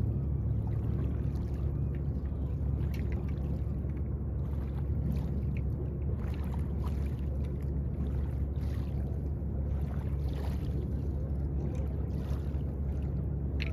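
Steady low engine drone, like a boat motor running on the river, with faint irregular ticks over it.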